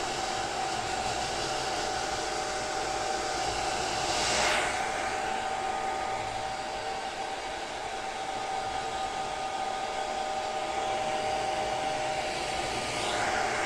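Hand-held hair dryer running steadily, a rushing blast of air over a thin motor whine, swelling briefly a few seconds in and again near the end.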